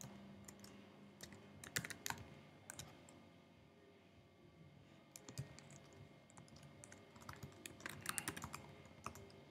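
Computer keyboard being typed on, faint, in short bursts of keystrokes with pauses between: a cluster about two seconds in, a few around five seconds, and a longer run near the end.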